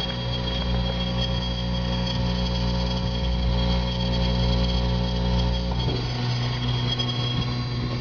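A steady mechanical hum of several low held tones, changing slightly about six seconds in.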